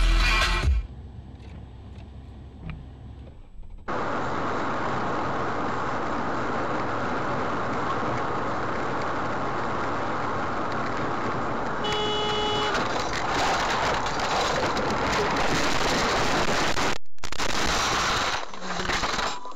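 Steady road and wind noise of a car driving at highway speed, recorded by a dashcam inside the car, with a brief pitched tone about two-thirds of the way through.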